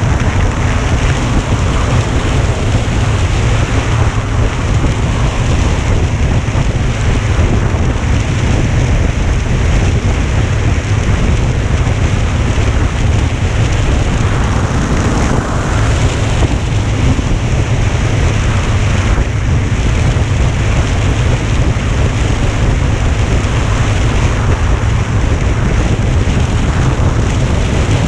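Loud, steady wind buffeting on the microphone: a dense low rumble with a rush of air over it.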